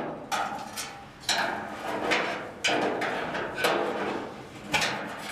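Screwdriver scraping and prying against a loose sheet-steel car floor pan as it is levered into position. There are about six sharp metal scrapes and clanks, each fading out over about half a second.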